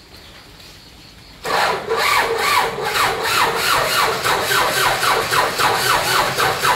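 Engine of a long-stored old tractor being cranked over without firing, a rasping, rhythmic churn of about four strokes a second that starts about a second and a half in. It is only turned over to check that it is still sound, since running it dry would seize it.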